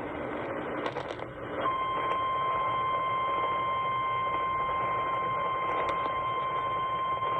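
Noisy, static-laden weather radio reception with a few crackles, then about a second and a half in a steady single-pitch alert tone starts and holds: the 1050 Hz NOAA Weather Radio warning alarm tone that comes before a warning is read.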